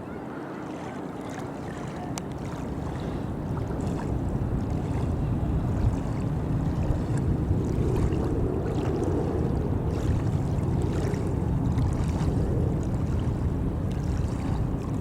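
Steady low rumble of a moving vehicle, growing louder over the first few seconds and then holding steady.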